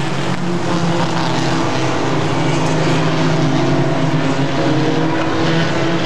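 Mini stock race cars running as a pack around the oval: a steady blend of several engines with no letup.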